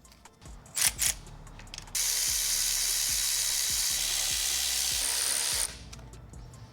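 Two sharp clicks, then a loud, steady hiss with a faint high whistle, typical of a shop air tool, which runs for nearly four seconds and cuts off suddenly.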